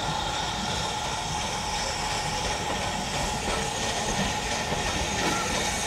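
Ivatt 2MT 2-6-0 steam locomotive No. 46447 and its carriages running slowly into a station, a steady noise without any sharp beats.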